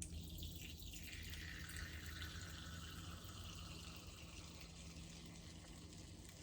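A faint trickle of lemon juice dribbling from a nearly empty bottle into a measuring tablespoon, over a steady low hum.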